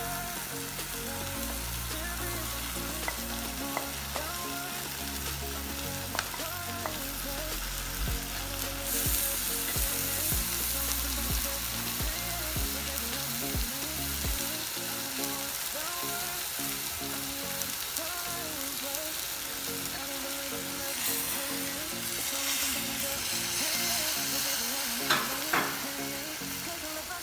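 Mutton and dal sizzling in a frying pan, with a wooden spatula scraping through them as they are stirred and knocking against the pan a few times, most sharply near the end.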